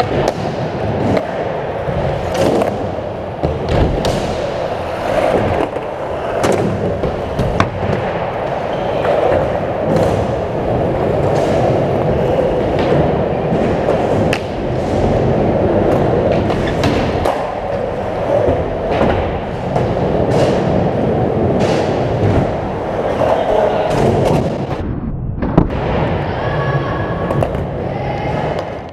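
Skateboard wheels rolling on a hard skatepark floor and ramps, with repeated clacks and thuds from the boards: pops, landings and knocks against the ramps. The sound dips briefly near the end, then the rolling picks up again.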